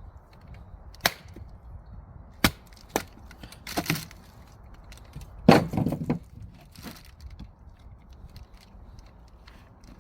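Axe blows striking firewood logs, a sharp hit every second or so, with the loudest blow about five and a half seconds in followed by a brief crackle as the wood splits.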